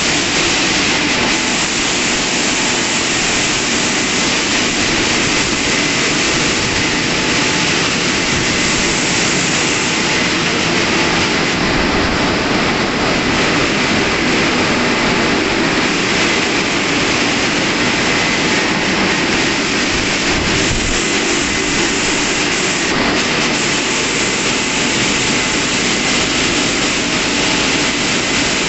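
Dryer blowers of a WashTec SoftCare 2 Pro rollover car wash running in the final drying stage: a steady, loud rush of air over the car.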